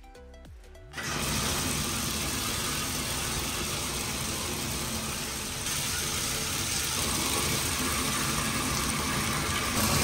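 Water gushing steadily from a bathtub spout into the tub, starting abruptly about a second in as the single-lever Moen tub/shower valve is turned on. This is the test run of a freshly replaced Moen 1225 cartridge, and the valve is delivering full flow.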